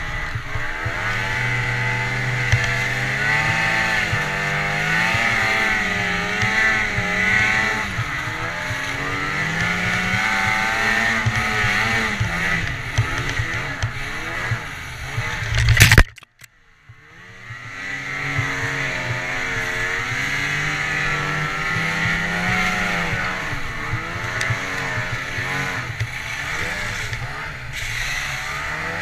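Snowmobile engine running under changing throttle, its pitch rising and falling. Just past halfway there is a sharp, loud knock, then the sound nearly drops out for about a second before the engine comes back.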